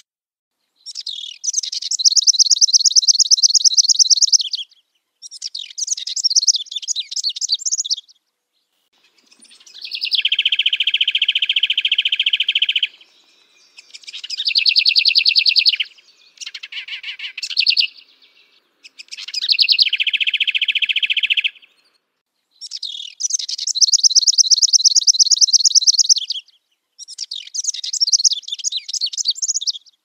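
Songbird chirping in about eight bursts of rapid, chattering trills, each one to four seconds long, separated by short silent gaps. Some bursts are high and thin, others a lower, fuller trill.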